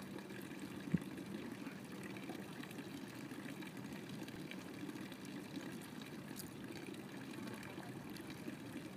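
Water running steadily from a cast-iron public drinking fountain's spout into its stone basin, a continuous low splashing trickle. One short knock about a second in.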